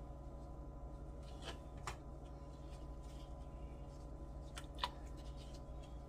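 A few short soft taps and plops, the sharpest about five seconds in, as strips of dumpling dough are dropped from a gloved hand into a pot of boiling chicken broth, over a steady low hum.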